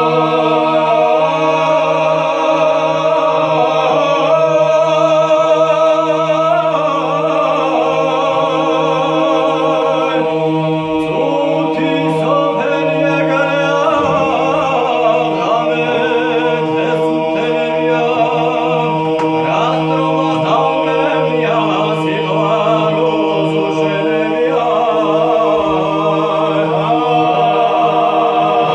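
Georgian polyphonic singing by a small group of unaccompanied men's voices, the upper parts moving over a steady held low note.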